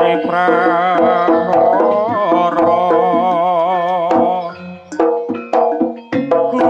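Javanese gamelan music for Jaranan: a singer holds long, wavering sung lines in Javanese over sustained gong-chime tones, with hand-drum strokes. The voice drops out a little past the middle, leaving the drum strokes and the ensemble.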